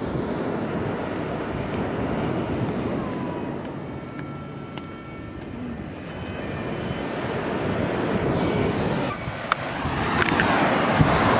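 Ocean surf and wind on a beach, with wind rumbling on the phone's microphone; the wash swells louder near the end.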